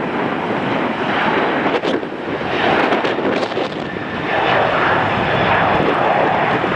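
Jet airliner's engines passing close by, a steady rushing noise that grows stronger about four and a half seconds in.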